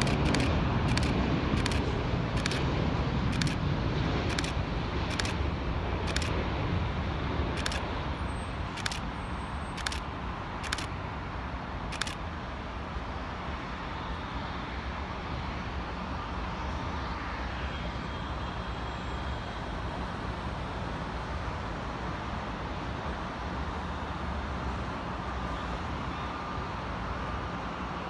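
Airbus A350-900's Rolls-Royce Trent XWB jet engines passing on final approach, loudest at first and fading over about eight seconds into steady road traffic noise. Sharp clicks come every second or so through the first twelve seconds.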